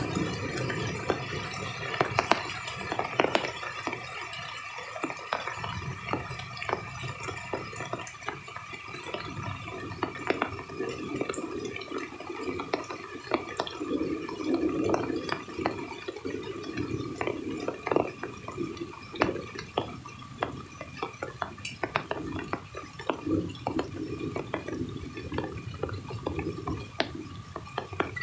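Rain dripping: irregular drops landing one after another over a steady low wash of water.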